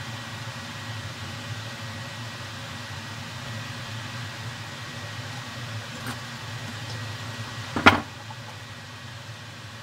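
Steady low mechanical hum, with a faint click about six seconds in and one sharp knock about eight seconds in, after which the hum is a little quieter.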